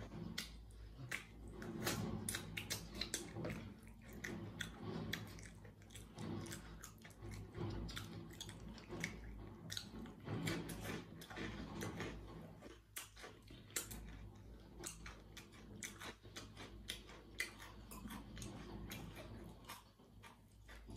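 Chewing and crunching of dry, oven-dried rusk pieces (galeta) coated in spicy ketchup sauce, a steady run of sharp crackles with a short lull about two-thirds of the way through.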